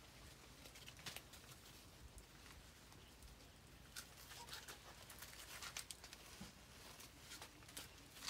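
Faint rustling of leaves and twigs in a fruit tree, with a few scattered small snaps and clicks, as a climber standing in the branches moves among them and reaches for the fruit.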